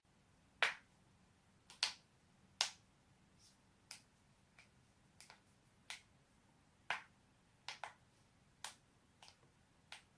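Human joints being cracked: a series of about a dozen sharp pops, roughly a second apart, some coming in quick pairs.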